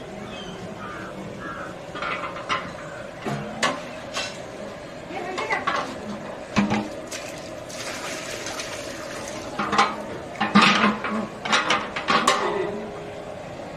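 Metal cooking pots and utensils clanking and knocking, with some liquid sloshing, over a steady background hum.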